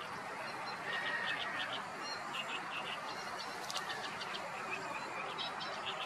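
Outdoor birdsong: small birds chirping in quick clusters of short high notes, with a thin steady whistle about a second in, over a steady background hiss.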